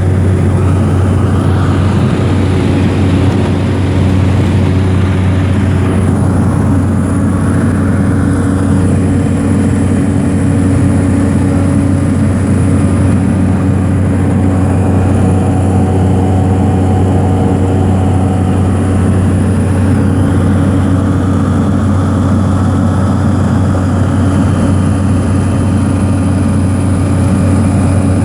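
Aircraft engines droning steadily, heard from inside the passenger cabin, with a strong low hum.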